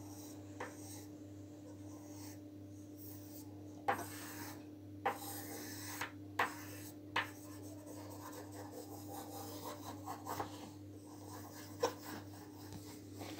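Graphite pencil scratching on paper in short strokes as lines are sketched, broken by several sharp clicks. A faint steady hum runs underneath.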